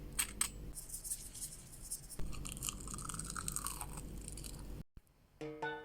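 Crunching of a crispy fried snack, with a few sharp crackles near the start, then a brief silence before background music begins near the end.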